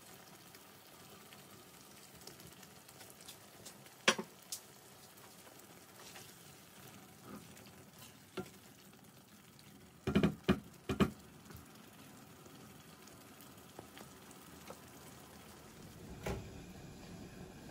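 Chicken and masala sizzling gently in a frying pan while a spatula stirs it, with a few sharp knocks of the spatula, one about four seconds in and a quick cluster around ten seconds in.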